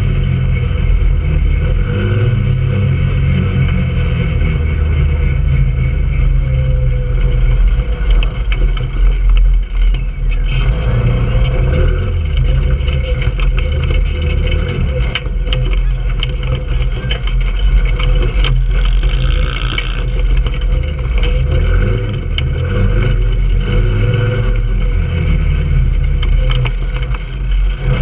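Trailmaster 150 go-kart's engine running and changing speed as the kart drives over rough dirt, with scattered knocks and rattles from the bumps.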